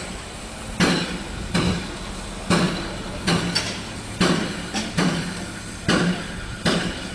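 Steam tank locomotive working slowly at low speed, its exhaust beats coming as sharp chuffs about every 0.8 s over a steady hiss.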